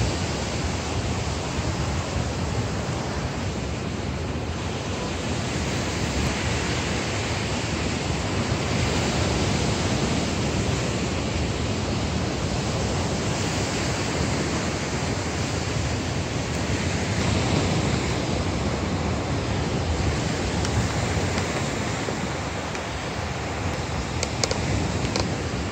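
Steady outdoor noise of wind on the microphone and ocean surf: an even hiss that swells and eases slowly.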